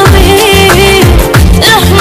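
Naat singing: a single voice holds a long, wavering melodic line over a steady deep drum beat that strikes about every two-thirds of a second.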